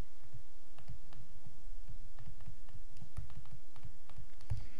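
Stylus tapping and scratching on a tablet during handwriting: a scatter of small, light clicks over a steady low background rumble.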